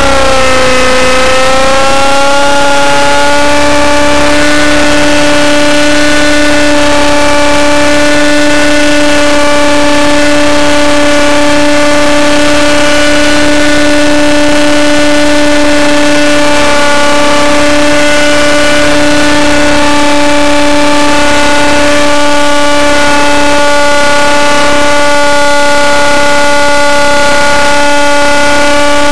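RC helicopter's engine and rotor running at a steady high-pitched whine; the pitch dips briefly about a second in, then holds level.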